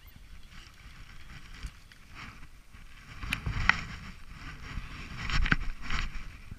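Rustling and low rumbling of wind and handling against the microphone, with a few sharp clicks and knocks in the middle and near the end, as a fishing rod and line are handled to bring in a small fish.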